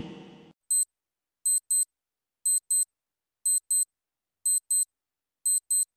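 Countdown-timer clock sound effect: short, high ticks, a single one and then a tick-tock pair each second, five pairs in all.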